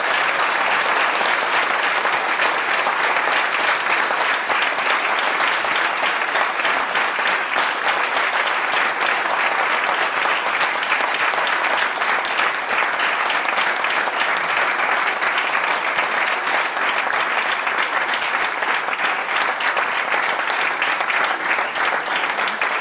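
An audience applauding, long and steady.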